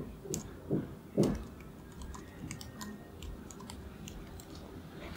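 Computer keyboard being typed on, a scatter of soft, irregular key clicks as an email address is entered. A brief, louder low sound comes about a second in.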